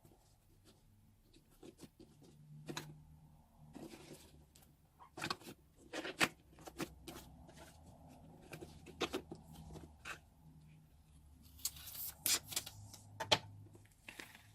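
Slime being piped, crackling and popping in irregular sharp clicks, with denser crackling runs in the middle and near the end.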